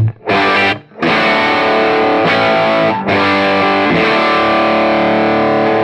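Electric guitar, a Les Paul-style, played through a valve amp into a quad cabinet: a run of strummed chords, the last struck about three seconds in and left to ring. The amp is set with a 0.68 µF cathode bypass capacitor on the input stage, a cathode-biased output and negative feedback off.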